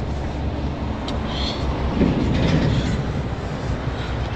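Very strong wind blowing against the tent and microphone as a steady low rumble, swelling louder about two seconds in.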